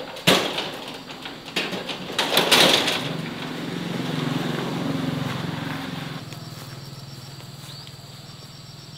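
Several sharp knocks and clatters, then a small engine running, swelling and then fading away.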